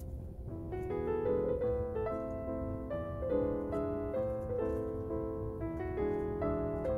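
Background piano music: a gentle melody of single notes and chords that fills out about a second in.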